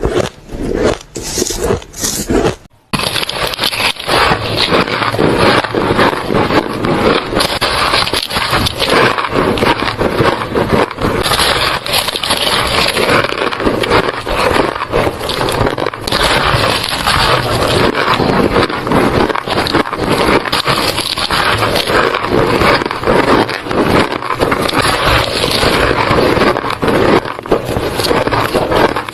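White ice being bitten and chewed close to the microphone: dense, rapid crunching and squeaking with a short break about three seconds in.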